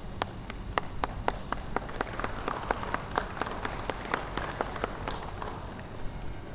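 Audience clapping in a steady rhythm, about four claps a second. It thickens as more hands join in the middle and dies away about five and a half seconds in.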